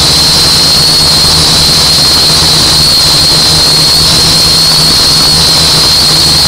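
Small camera drone's propellers and motors whining steadily in flight: a high whine that wavers slightly in pitch, over a low hum.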